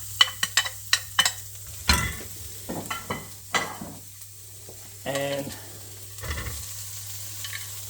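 Onions sizzling as they pan-fry, with a utensil clicking and scraping against the pan as they are stirred. The clicks come thickest in the first couple of seconds.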